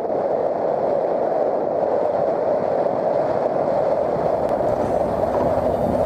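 A steady, even rumbling noise with no clear pitch, holding at one level throughout.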